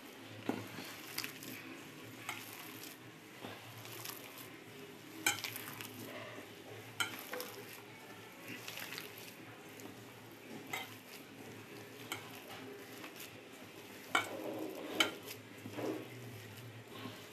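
A hand kneading and squeezing a wet mix of chopped Malabar spinach leaves and rice flour in a steel bowl: soft squishing and rustling, with irregular light clicks against the metal bowl.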